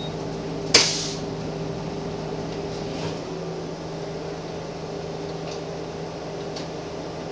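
Gillig Phantom transit bus engine running steadily with a low, even hum, heard from the driver's seat, with a short, sharp hiss of compressed air from the bus's air system about a second in.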